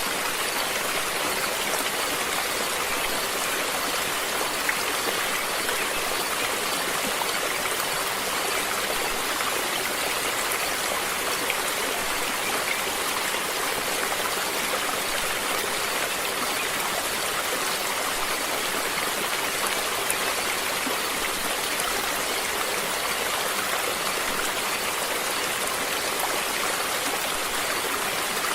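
Running water of a stream, a steady, even rush.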